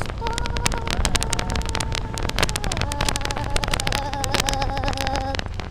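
Motorbike being ridden: a steady buzzing engine whine that drops a little in pitch about halfway through as the bike slows for a turn, and cuts off near the end. Wind buffeting and road bumps knock on the camera mic throughout.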